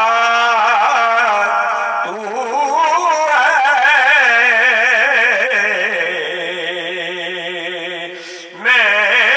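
A man singing verse into a microphone, alone, holding long drawn-out notes with heavy vibrato. A second long phrase begins about two seconds in, and a new phrase starts near the end.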